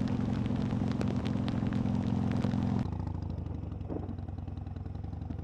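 Harley-Davidson V-twin motorcycle engine running at steady speed, with scattered sharp ticks over it. About three seconds in, the engine note drops lower and quieter as the throttle eases off.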